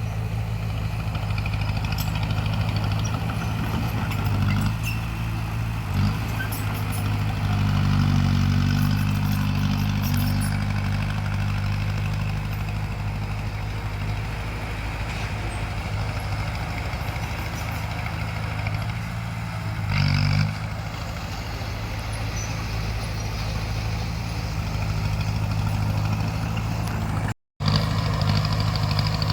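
Bulldozer's diesel engine running steadily, swelling as it works harder about a third of the way in and briefly again around two-thirds in. The sound cuts out completely for a moment near the end.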